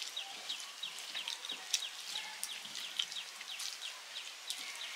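Birds chirping continuously in short, quick downward-sliding notes, several a second, with scattered faint clicks and squishes as fingers mash cooked eggplant into rice on a metal plate.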